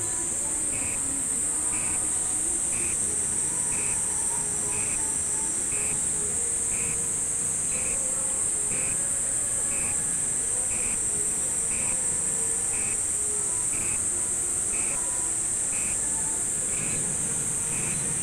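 Steady high-pitched drone of a summer insect chorus. A soft tick comes about once a second, with faint music and voices underneath.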